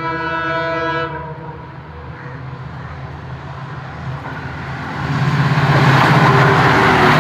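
EMD diesel locomotive's horn sounding a chord of several tones that cuts off about a second in, over the low drone of the engine. The noise of the train passing at speed then swells up and stays loud near the end.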